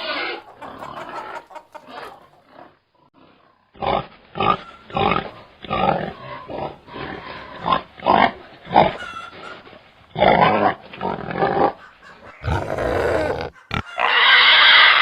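Pigs grunting: a run of short grunts, about two a second, begins about four seconds in, with a louder, longer call near the end.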